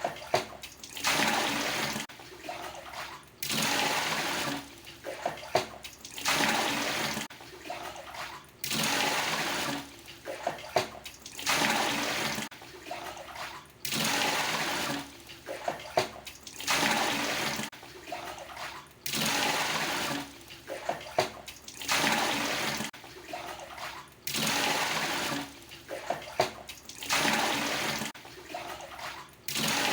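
A plastic water dipper (gayung) repeatedly scooping water from a traditional Indonesian bathroom tub (bak mandi) and pouring it out. The cycle repeats about every two and a half seconds: a pour lasting about a second, then quieter sloshing with small knocks of the dipper against the tub.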